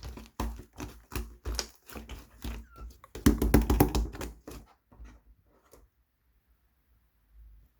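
Wood glue slime being squished and poked by hand, making quick runs of sticky clicks and pops, densest about three to four and a half seconds in, then a pause of about a second and a half near the end.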